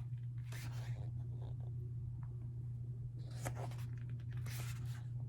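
Paper rustling: glossy album pages or cards being handled, with three short brushing sweeps over a steady low hum.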